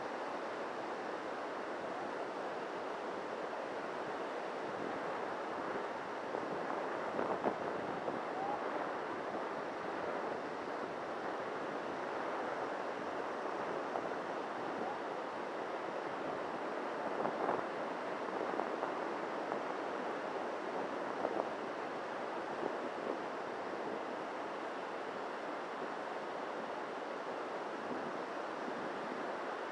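Surf breaking on a sandy beach: a steady wash of noise that swells a little now and then, with wind on the microphone.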